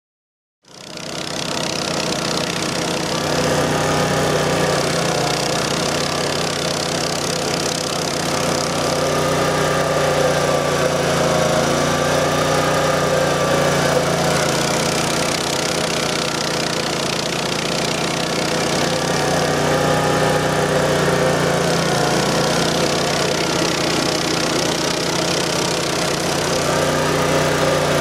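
1997 Vermeer SC252 stump grinder running under load, its engine and Greenwheel cutter wheel grinding into a stump, starting about a second in. The engine note is steady with gentle dips and recoveries in pitch every few seconds as the wheel bites into the wood.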